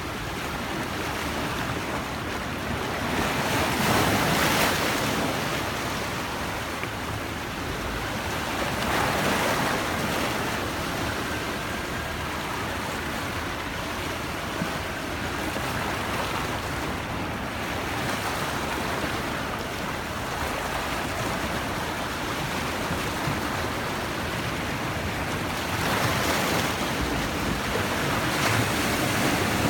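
Black Sea waves breaking on the shore: a continuous wash of surf that surges louder a few times as bigger waves come in.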